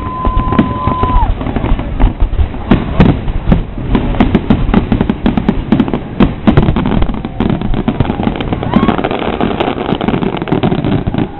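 Aerial fireworks shells bursting in rapid, overlapping succession: a dense barrage of booms and crackles over a continuous rumble. A steady whistle is held for about a second at the start.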